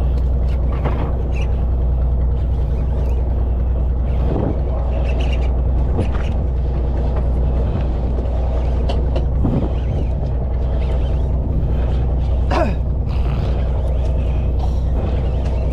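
An engine running steadily at an even speed, a deep constant drone, with a few brief knocks over it.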